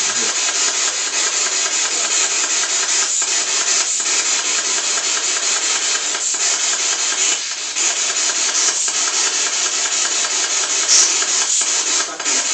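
Loud, steady radio static from a handheld ghost-hunting spirit box scanning the radio band, with slight dips every second or so. A brief louder spot about eleven seconds in is taken as a spirit voice saying "thank you".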